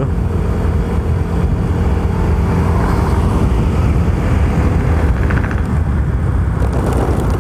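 Steady wind rush and road noise from riding along on a Yamaha Soul GT 125 automatic scooter, its single-cylinder engine running at cruising speed underneath.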